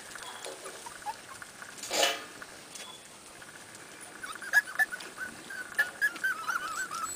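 Pembroke Welsh Corgi puppies whimpering in a run of short, high squeaks from about four seconds in, after a brief rustle about two seconds in.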